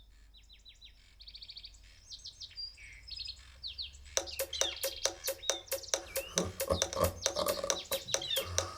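Recorded birdsong played back through DALI bookshelf speakers: a few sparse chirps and trills at first, then from about four seconds in a dense, louder chorus of chirps and sharp clicks.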